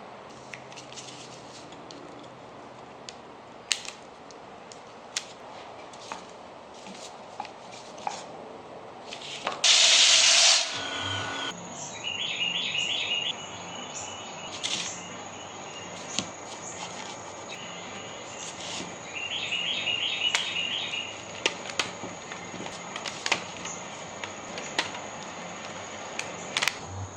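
Light clicks and knocks of small wooden segments being handled and glued up, with one loud spray hiss lasting about a second, roughly ten seconds in.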